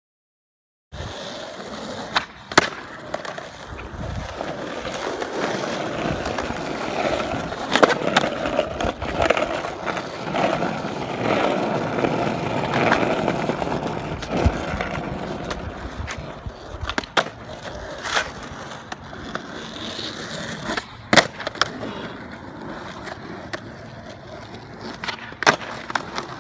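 Skateboard wheels rolling steadily over pavement, louder in the middle stretch, with several sharp clacks of the board being popped and landed.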